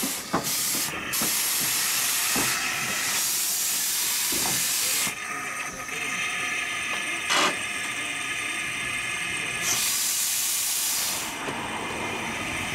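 A 15-inch gauge steam locomotive hissing steam: loud for the first few seconds, easing off, then a second burst near the end, with a few sharp metallic knocks in between.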